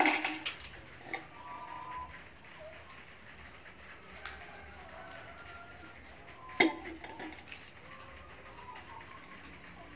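Scattered light knocks and clatters of a toddler's toy cooking pots and utensils, the sharpest one about two-thirds of the way through, with faint bird chirps in the background.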